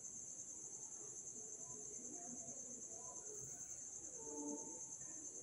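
Faint squeaks and scratches of a marker writing on a whiteboard, a little louder about four seconds in, over a steady high-pitched trill in the background.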